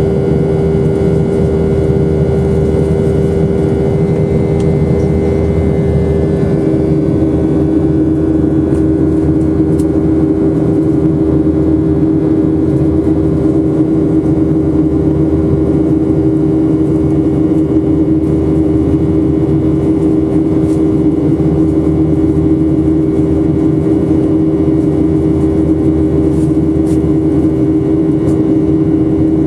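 The CFM56 jet engines of a Boeing 737-800 running steadily under power, a constant loud drone with a strong hum. About six seconds in, the main tone drops slightly in pitch.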